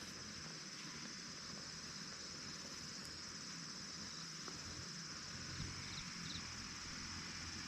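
Steady, high-pitched chirring of insects, with a few faint ticks about two-thirds of the way in.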